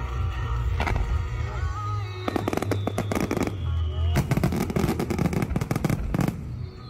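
Fireworks display: scattered bangs at first, then about two seconds in a dense run of rapid crackling bangs, with music and a steady low hum underneath. Twice a high tone slowly falls in pitch over the crackling.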